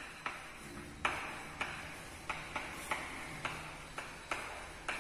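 Chalk tapping and scraping on a chalkboard as words are handwritten: a string of short, uneven clicks, about two a second.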